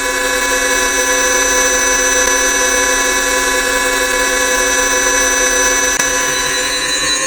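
A beep sound effect layered many times over at different speeds and pitches, forming a loud, unbroken chord of dozens of steady electronic tones, with a brief dip about six seconds in.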